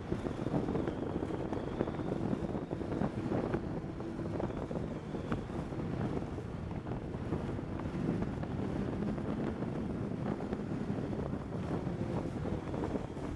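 Snowmobile engine running at speed over a snowy trail, its pitch shifting a little as it goes, with wind noise on the microphone and a steady patter of small knocks and rattles.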